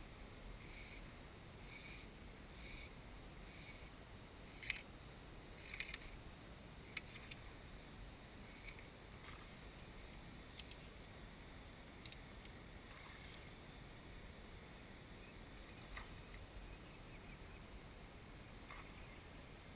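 Near silence, with a run of faint soft ticks in the first few seconds and a few sharper isolated clicks later.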